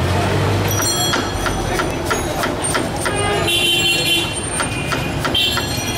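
Kitchen knife slicing through red onion and striking a wooden cutting board in a quick run of sharp taps, about three a second, over steady street traffic noise. A vehicle horn sounds about halfway through and again near the end.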